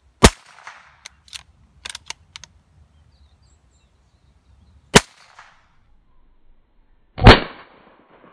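.22 LR firearm firing Winchester Super X #12 shot shells: three sharp loud reports, about five seconds and then two seconds apart, each with a short echoing tail. A few quiet clicks follow the first shot.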